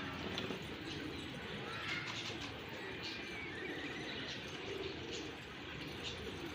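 Many domestic pigeons cooing and calling together, with short chirps from other birds among them.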